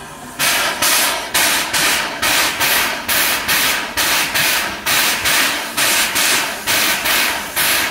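Steam locomotive exhaust chuffing in a steady, even beat of about two to three sharp chuffs a second, starting suddenly about half a second in: the engine working steam to get its train moving.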